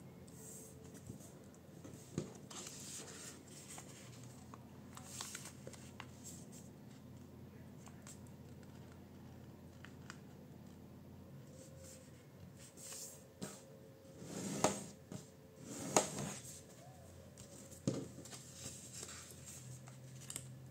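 A sheet of A4 printer paper being folded and creased by hand: soft rustles and rubbing swipes as fingers press the fold lines flat, with a cluster of louder crinkles and swipes about two-thirds of the way through.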